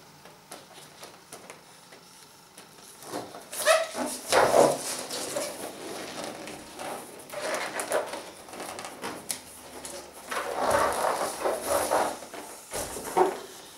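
Latex balloons rubbing and squeaking against each other and the fingers as a freshly pumped-up inner balloon is knotted and the nested balloons are handled, in irregular bursts, the loudest about four seconds in.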